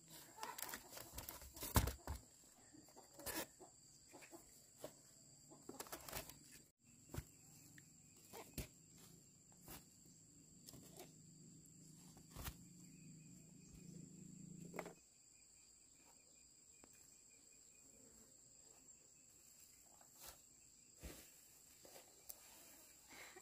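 Faint chickens clucking, with scattered sharp clicks and knocks. A low hum stops about fifteen seconds in.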